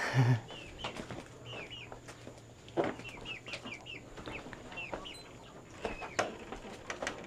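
Chickens calling: a run of short, high, repeated calls, with a few soft knocks in between.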